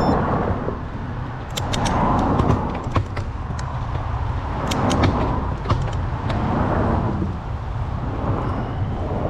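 Cyclist breathing hard while climbing, the breaths coming in swells about every two seconds, over a low wind rumble on the microphone, with a scatter of sharp clicks.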